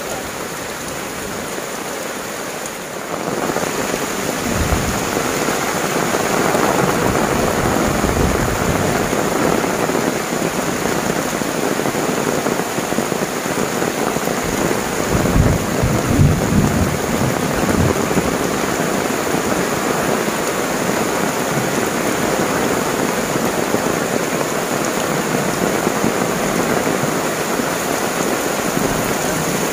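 Heavy tropical rain pouring steadily onto clay roof tiles, leaves and an umbrella overhead, getting louder a few seconds in. A few low rumbles come through the rain, the longest around the middle.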